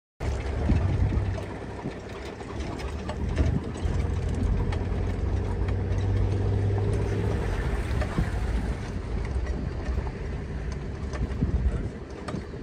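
A vehicle engine idling with a steady low hum. It cuts in abruptly at the start.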